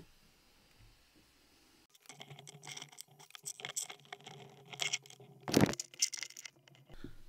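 Handling noise from a lock cylinder and a small vise: after a short quiet stretch, scattered metal clicks and scrapes as the cylinder is taken out of the vise, with one sharp knock a little past halfway.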